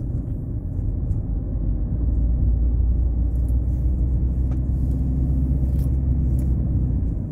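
Steady low rumble of a car's engine and tyres heard from inside the cabin while driving up a winding mountain road, growing a little louder about two seconds in.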